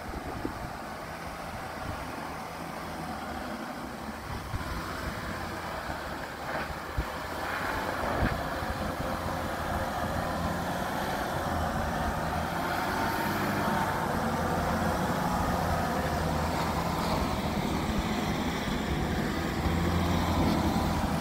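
VW Amarok's 3.0-litre V6 turbo-diesel running steadily at low revs as the ute crawls up a steep rocky hill climb. It grows louder as it approaches, with a sharp knock about eight seconds in.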